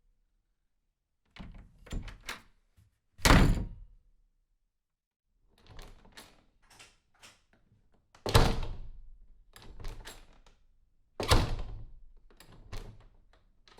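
Doors being worked: latch clicks and a handle rattle, then three loud door slams a few seconds apart, each ringing briefly, the later two followed by a lighter knock.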